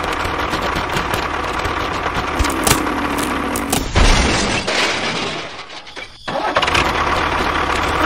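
An engine running steadily, with a few sharp clicks and knocks over it; the sound drops away briefly about six seconds in and then picks up again.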